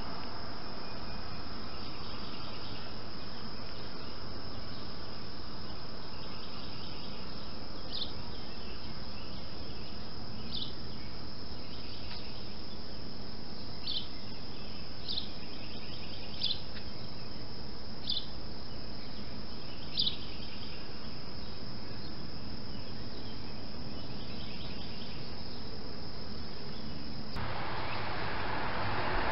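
Outdoor ambience of insects trilling over a steady hiss, with about seven short high chirps spread through the middle. Near the end it cuts suddenly to a louder rushing noise.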